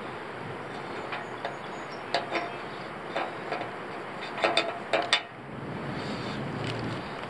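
Small steel quick links and chain clinking as they are handled and hooked onto the flagpole rope, knocking against each other and the aluminium pole. A few sharp metallic clicks come about two seconds in, then a quicker cluster of louder clinks with short ringing near the five-second mark, over a steady background hiss.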